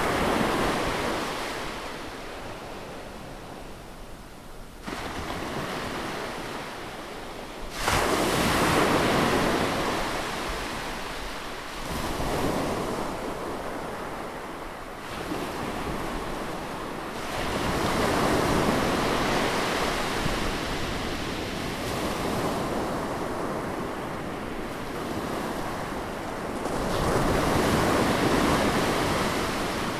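Sea waves breaking close on a shore. Each wave surges in and washes back over a few seconds, with the loudest breaks about eight seconds in and near the end.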